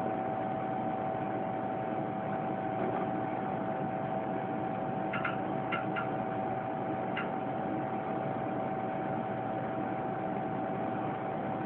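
Cooling fans of a Tektronix TDS-744A oscilloscope running steadily just after power-on, a constant whir with one steady tone. A few short clicks come about five to seven seconds in while the scope starts up and self-tests.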